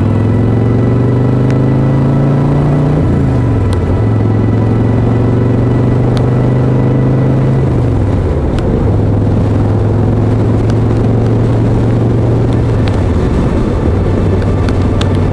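Harley-Davidson V-twin motorcycle engine running at road speed, with steady wind and road noise. Its pitch climbs over the first few seconds, drops sharply about three seconds in, as at a gear change, and steps down twice more later on.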